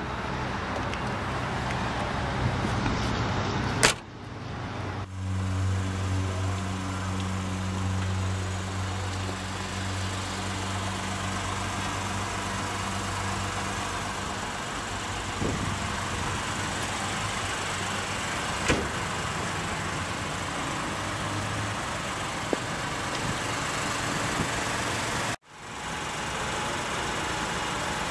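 Steady outdoor ambient noise with a low, steady hum between about 5 and 15 seconds, and a single knock about 4 seconds in.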